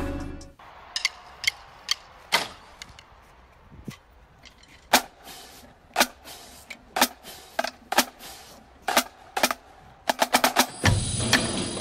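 Single sharp drumstick strikes, spaced out irregularly about once a second, with a quick run of hits near the end.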